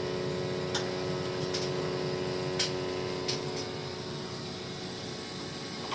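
Gas-fired boiler running, with a steady hum and a few faint, sharp ticks in the first few seconds. The boiler is burning rich and spilling carbon monoxide through a venting problem.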